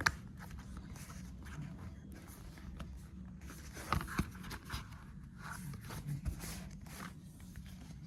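Hands handling a debit card's paper and cardboard packaging: irregular rustling, scraping and light taps, loudest about four seconds in, over a low steady hum.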